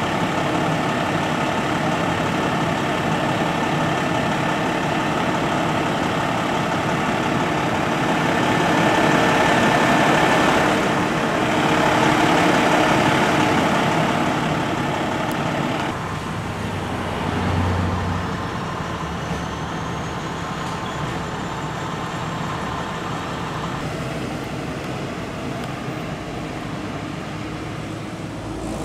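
A fire truck's engine idling steadily amid street traffic. The traffic grows louder for several seconds about a third of the way in and eases off a little past the halfway mark.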